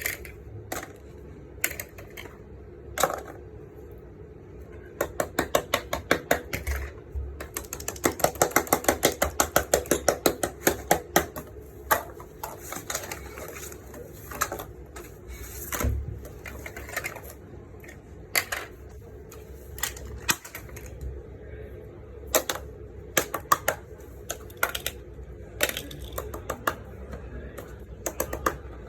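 Plastic fidget toys being clicked and tapped in scattered sharp clicks. A fast run of about six clicks a second comes in the middle stretch, over a faint steady hum.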